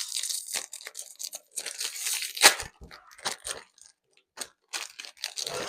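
Plastic ice cream sandwich wrapper being torn open and crinkled, in irregular crackling bursts with one sharp rip about two and a half seconds in.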